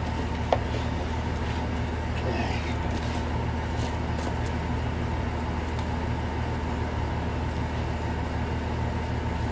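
Truck engine running steadily with a low, even hum while it holds the tow rope taut against the cement block.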